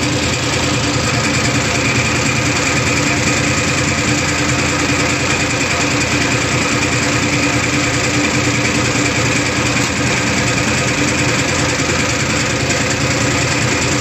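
Diesel injection-pump test bench running steadily, driving a Massey Ferguson 240 DPA-type fuel-injection pump whose injectors spray fuel into the graduated measuring glasses. It makes a continuous mechanical running noise with an even high hiss and no change in speed.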